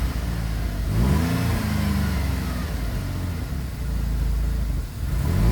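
GM 3.6-litre V6 engine, just replaced, running after a cold start: the throttle is blipped about a second in, the pitch rises and holds, then the engine is revved again near the end.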